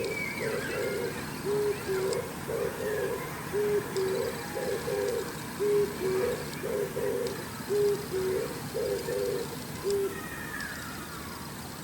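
Oriental turtle dove singing its low, repeated cooing phrase, about five phrases roughly two seconds apart, stopping about ten seconds in. A higher, thinner bird call sounds faintly at the start and again near the end.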